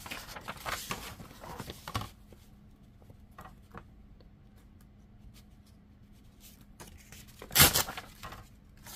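Sheet of printed paper being handled and shifted against a plastic scoring board, rustling for the first two seconds, then a few light taps, and a short loud rip of paper being torn near the end.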